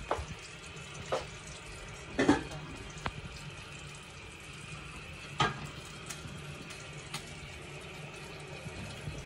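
Bread topped with bacon and cheese sizzling in a frying pan, a steady hiss, with a few sharp knocks of the pan or a utensil, the loudest a little over two seconds in.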